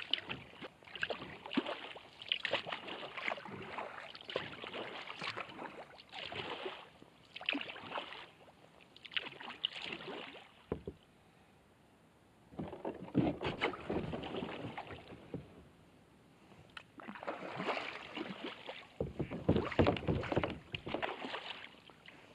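Kayak paddle strokes in calm water: the wooden blade dipping, pulling and dripping in an uneven rhythm of splashes, pausing twice for a second or two midway.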